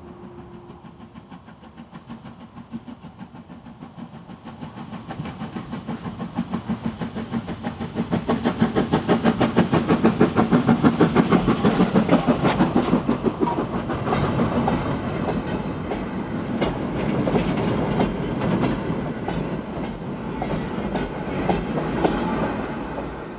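Steam tank locomotive hauling a train of coal hopper wagons past, its rapid, regular exhaust beats growing louder to a peak about ten seconds in, then the wagons clattering by on the rails. The sound cuts off suddenly at the end.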